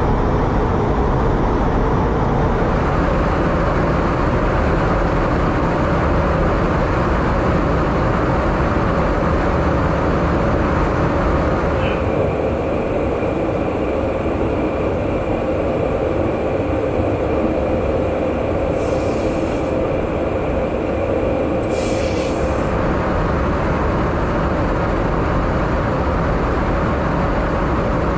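Steady rumbling roar of an aircraft's engines and airflow in flight. The noise changes about twelve seconds in, and a thin steady whine runs over the next ten seconds, with two brief hisses near its end.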